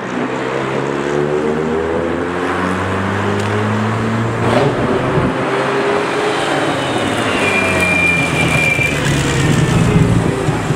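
Cars driving past one after another on a tarmac road, their engine notes dropping in pitch as each goes by, over steady tyre and road noise. A brief thin high whistle-like tone sounds about two thirds of the way through.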